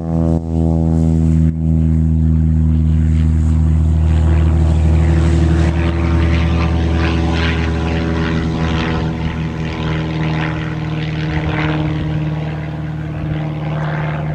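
Light propeller aircraft engine running steadily at high power, its pitch unchanging, fading slightly near the end.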